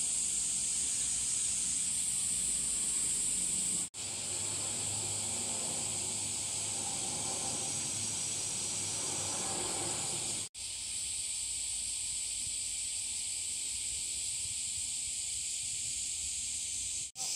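Cicadas droning in a steady, high-pitched summer chorus, broken by three brief dropouts.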